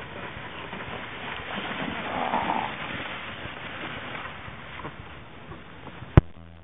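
Plastic kayak hull scraping and hissing as it slides over snow down a slope, loudest about two seconds in. A single sharp click near the end.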